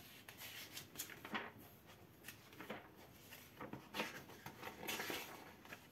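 Faint rustling of paper pages as a thick trade-paperback comic book is leafed through: several soft brushes and flicks of turning pages.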